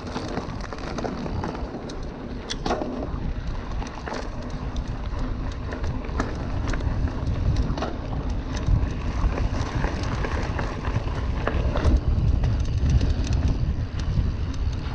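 Specialized Stumpjumper Comp mountain bike ridden fast down a dirt trail, heard from the rider's camera: a steady low rumble of tyres and air over the microphone, growing louder in the second half, with frequent sharp rattles and clacks from the bike over bumps.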